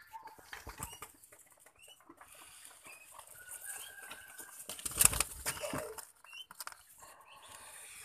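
A dove flapping its wings in a short burst about five seconds in, disturbed by a hand reaching into its wooden-slat cage, with scattered rustles and light knocks of handling around it.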